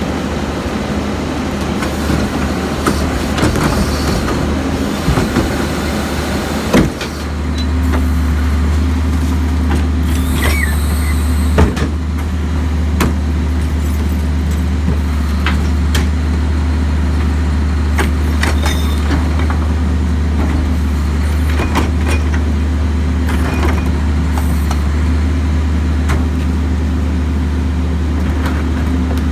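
Crane Carrier garbage truck's diesel engine running, stepping up to a louder, steady higher idle about seven seconds in to drive the Leach rear loader's hydraulic cart tippers. Plastic trash carts knock and clatter against the tippers, with a brief squeal about ten seconds in.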